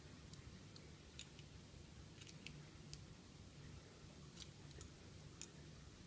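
Near silence with a few faint, light clicks scattered through it: small parts being handled by hand.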